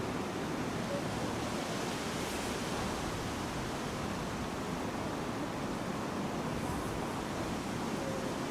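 Steady rushing noise, even and unchanging, with no distinct events.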